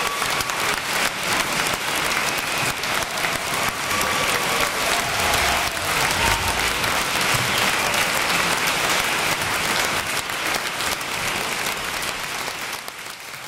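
Concert audience applauding after an orchestral performance. Dense, steady clapping that dies away near the end.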